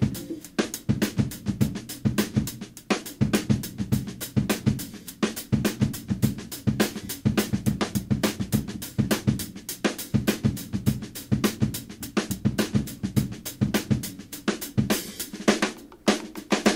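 Background music: a drum-kit passage with snare, hi-hat, cymbals and bass drum playing a fast, steady beat, without other instruments.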